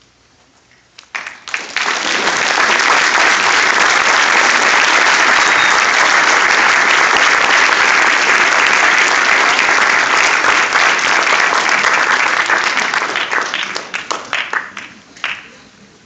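Audience applauding: a few claps about a second in swell quickly into full, steady applause, which dies away into scattered claps near the end.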